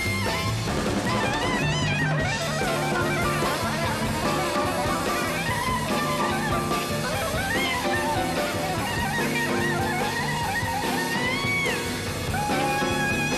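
Soprano saxophone improvising fast, bending runs in modal jazz, over a band with bass, drums and guitar.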